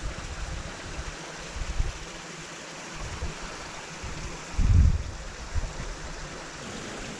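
Steady rush of flowing water, with low buffeting from wind on the microphone; the strongest buffet comes a little after halfway.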